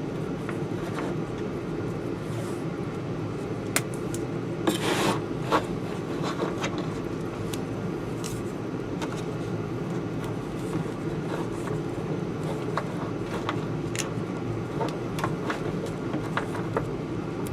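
Electrical tape being pulled off the roll and wrapped around wiring: scattered small rubbing and crackling sounds, with a louder rasp of tape peeling off about five seconds in, over a steady low hum.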